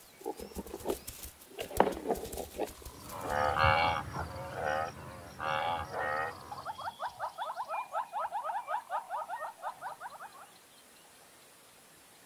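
Cape buffalo grazing, with crisp tearing and crunching of grass, then a few lowing calls. These are followed by a fast run of short rising chirps that lasts about four seconds.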